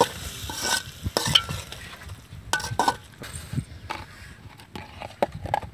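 Perforated metal skimmer scraping and knocking against a large aluminium wok while stirring sizzling chopped onion, tomato and pepper masala. The strokes come irregularly, and the sizzle thins out about halfway through.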